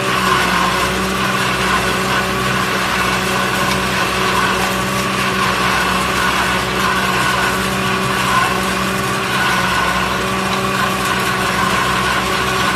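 Tractor engine and its tractor-mounted corn silage forage harvester running steadily while chopping standing corn and blowing the chopped silage into a trailer, an even mechanical hum with a steady whine over it.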